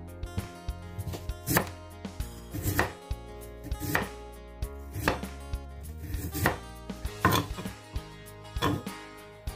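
Broad kitchen knife slicing a carrot on a wooden cutting board: sharp knocks of the blade hitting the board, roughly one a second and uneven, some in quick pairs.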